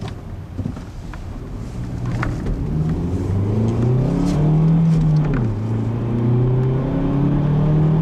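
Ford Focus 2.0-litre direct-injection four-cylinder heard from inside the cabin, rising in pitch as the car accelerates, then dropping sharply about five seconds in at an upshift of the five-speed manual and climbing again.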